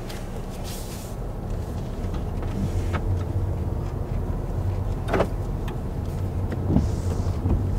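A car driving, heard from inside the cabin: a steady low rumble of road and engine, with a few light knocks, the loudest about five seconds in.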